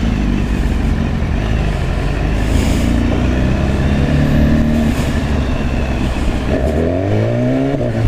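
A 2016 BMW S1000RR's inline-four engine running in traffic, fairly steady at first. For the last second and a half the revs climb as the bike accelerates, breaking off at a gear change right at the end.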